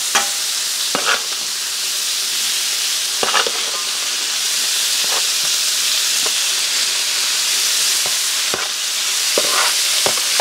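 Thin-sliced ribeye frying on a hot oiled Blackstone griddle, a steady sizzle, with scattered sharp clicks and taps of a metal spatula on the steel cooktop as the meat is spread out.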